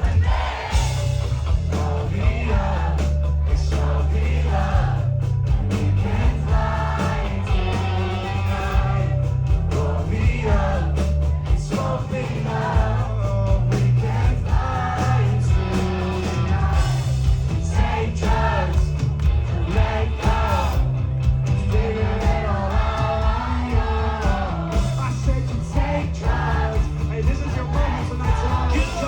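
Live rock band playing loudly, with sung vocals over heavy bass and steady drum hits.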